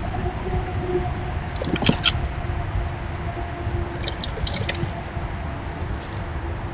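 Steady low outdoor rumble with a faint hum, broken by sharp clicks and light rattles about two seconds in and again around four seconds: a squirrel clambering on a metal tube bird feeder.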